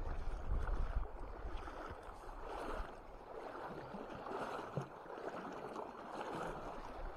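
River water running over a shallow gravel bed, a steady rushing, with wind rumbling on the microphone, most in the first second.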